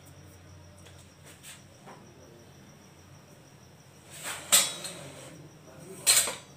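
A plastic strainer basket of flour-coated chicken pieces being shaken to knock off the loose dry flour: two short rattling bursts, about four and six seconds in. A faint steady high tone runs underneath.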